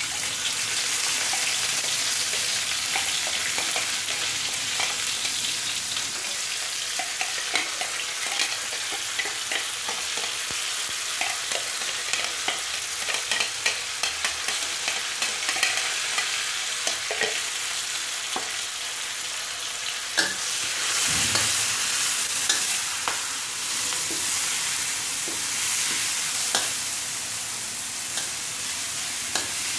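Ground chili, garlic and shallot spice paste frying in hot oil in a metal wok, sizzling steadily, with many short scrapes and taps of a spoon and metal spatula against the wok as it is added and stirred. The sizzle grows louder a little after twenty seconds in.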